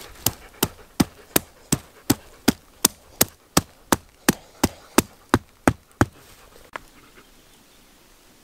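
Wooden stick stake being hammered into forest ground: about eighteen sharp, even knocks at roughly three a second, stopping about six seconds in, with one last faint knock after.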